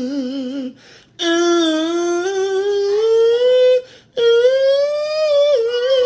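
A voice humming three long held notes with short breaks between them: the first wavers, the next two slide slowly upward in pitch.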